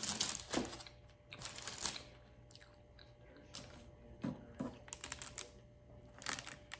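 Close-miked chewing of food, with crunchy bites coming in several short crackly bursts.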